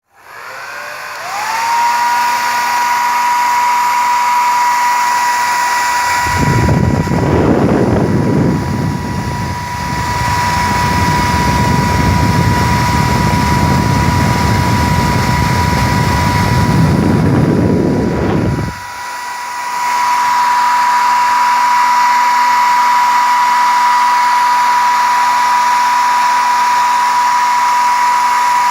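Electric hair dryer switched on, its motor whine rising quickly and then holding a steady pitch over the rush of air. For about twelve seconds in the middle a heavy, rough low rushing noise is added, then it drops away abruptly and the steady whine and airflow carry on.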